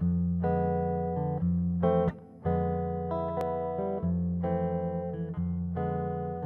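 Instrumental introduction of an Italian swing song: guitar playing a sequence of held chords, each lasting about half a second to a second and a half, with a short break about two seconds in.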